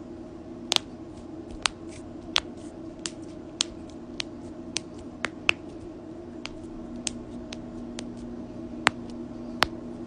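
Joints cracking: a run of sharp, dry pops, irregular at roughly two a second, over a steady low hum.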